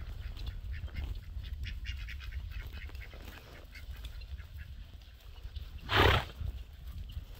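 Ducks quacking in short calls over a steady low rumble, with one brief loud noisy burst about six seconds in.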